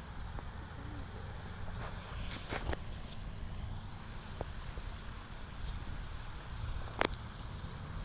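Outdoor ambience: a faint, steady high-pitched insect buzz over a low rumble, with a few sharp clicks, two close together about two and a half seconds in and one about seven seconds in.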